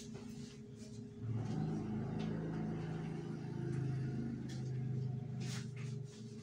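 A motor vehicle's engine running as it passes: it swells about a second in, holds steady for several seconds and fades near the end.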